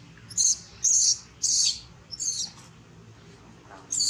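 Baby macaque crying: a run of short, shrill, high-pitched distress cries, four in quick succession, then another near the end.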